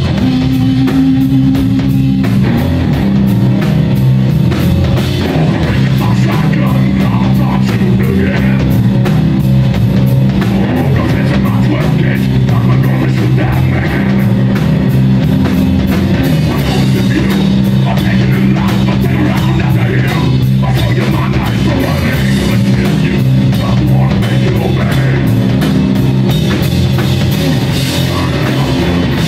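Live rock band playing loud: electric guitar, bass guitar and a drum kit keeping a steady, fast beat.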